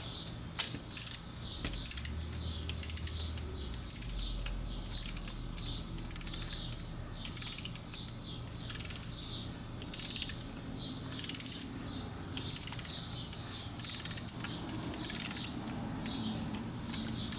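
Ratchet head of a torque wrench clicking through about a dozen short ratcheting strokes, one every second or so, as a clutch bolt is run down during a staged torque sequence.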